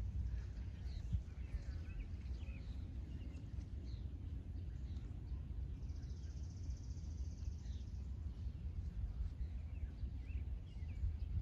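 Outdoor ambience: a steady low rumble with scattered small bird chirps, and a high buzzing trill lasting about two seconds in the middle.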